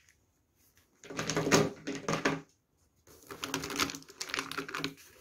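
Plastic Ecoline brush-pen markers clattering against each other as handfuls are pulled from a pouch and dropped onto the table, in two bursts of rapid clicking, about a second in and again about three seconds in.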